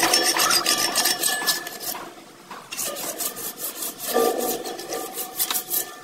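Rapid back-and-forth hand scraping at several strokes a second, like a rasp or brush worked over the metal fence, pausing briefly about two seconds in.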